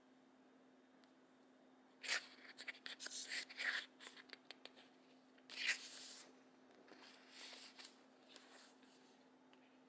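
Stiff pages of a large scrapbook being handled and turned: paper rustling and sliding from about two seconds in, with a louder brush of paper about halfway through and softer rustling after.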